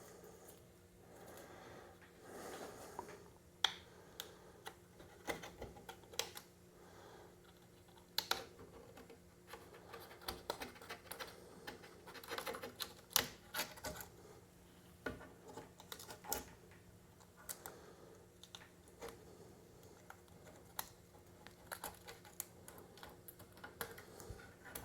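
Adhesive vinyl being handled and trimmed by hand on a wooden arcade control panel box: faint, irregular clicks, taps and short scrapes.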